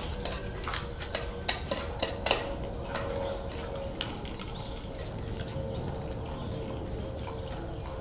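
Metal dishes clinking: a serving pot and steel dog bowls knocking as the dogs are fed. A quick run of sharp clinks comes in the first two and a half seconds, followed by fainter ticks of dogs eating from the bowls.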